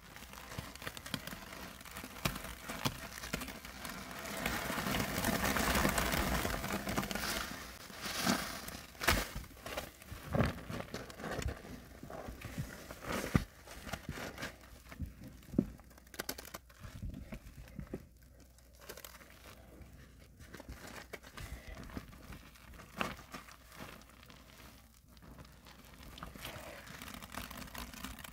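A soapy sponge loaded with white powder paste being squeezed and kneaded by gloved hands: wet squelching and the crackle of bursting suds, with scattered small pops. The squelching is loudest and densest a few seconds in, then turns softer and sparser.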